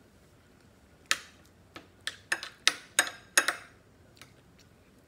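Metal spoon clinking and scraping against a ceramic plate while scooping rice: about eight sharp, ringing clinks in quick succession, starting about a second in and stopping a little past halfway.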